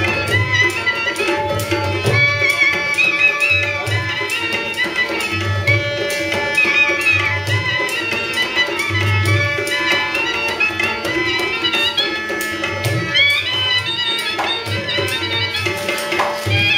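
Snake charmer's been (pungi) music: a high pipe tune that wavers and slides over a steady drone, with hand-drum beats underneath.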